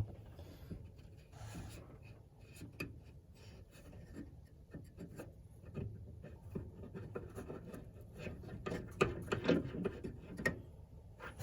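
Small metal clicks, taps and scraping as tiny screws are started and turned by hand with a socket, with a cluster of louder clicks near the end.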